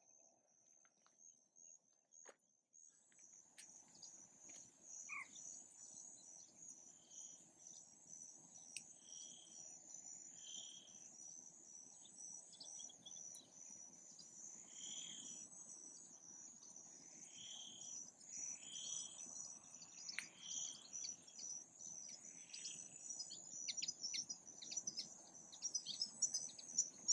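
Faint evening marsh ambience: a steady, high-pitched insect chorus of crickets trilling, starting about three seconds in. Short bird chirps repeat every second or two over it.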